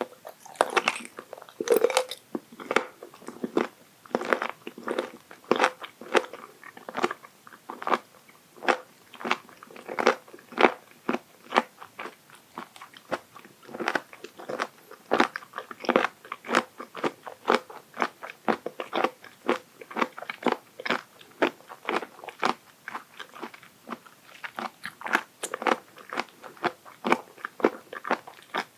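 Raw abalone sashimi being bitten and chewed, a steady run of sharp, crisp crunches about two to three a second.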